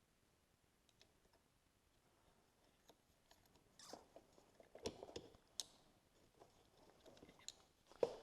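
Faint scattered clicks, taps and small knocks of hands working a small part into the passenger grip handle, with a few louder knocks in the middle and a sharp one near the end.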